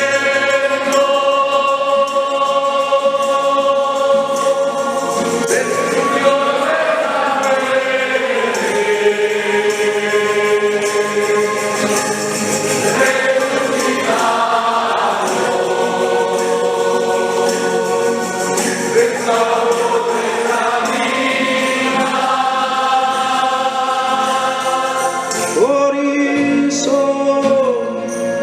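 A church choir singing a hymn together, holding long notes that change every few seconds.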